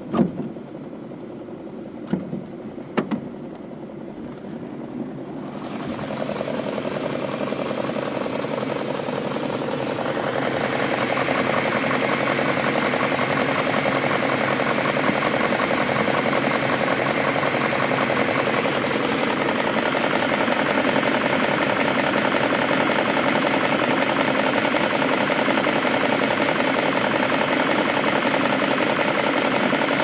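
BMW M62B44TU 4.4-litre V8 idling warm, heard close over the engine bay. It has a steady tapping that the owner puts down to the VANOS units on both banks, plus a ticking from the left bank that he takes for a lifter. A few sharp clicks come in the first three seconds, and the engine grows louder about six and ten seconds in.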